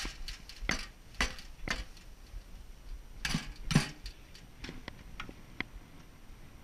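A few irregular crunching footsteps and shuffles in fresh, deep snow, with two heavier crunches about halfway through.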